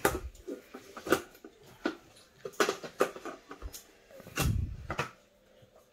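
Plastic clicks and knocks of a Thermomix mixing-bowl lid being put on and its measuring cup fitted in: a string of short, sharp taps, with a duller thump a little after four seconds in.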